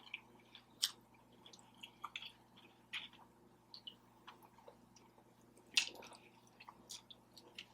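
Close-miked chewing of birria tacos: soft, wet mouth clicks and smacks, scattered and irregular, with two sharper smacks about a second in and again later on.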